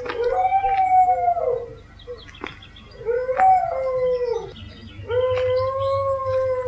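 A dog howling: three long howls with short pauses between, each holding a steady pitch and then dropping away at the end.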